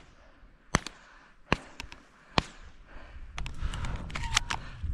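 Shotgun shots at flushing prairie chickens: three sharp reports roughly 0.8 s apart, followed by a few lighter clicks and wind noise on the microphone.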